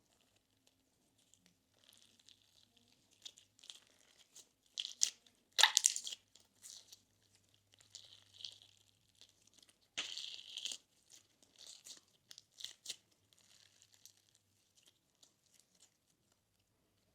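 Slime being squished, stretched and pulled apart by hand, giving irregular crackling and crunching sounds, with the loudest crunches about five and a half and ten seconds in.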